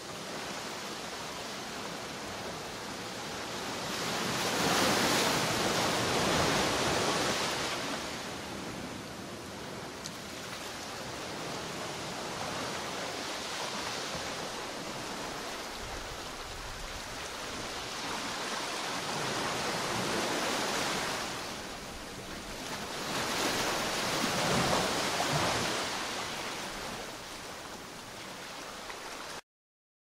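Ocean surf: a steady wash of waves that swells up three times as waves break, a few seconds in, about two-thirds through and again shortly after, then cuts off suddenly just before the end.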